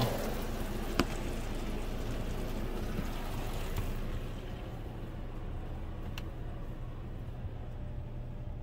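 Car wash water spraying over the car, heard from inside the cabin as a steady hiss that eases and dulls about four seconds in. Two sharp clicks, about a second in and about six seconds in.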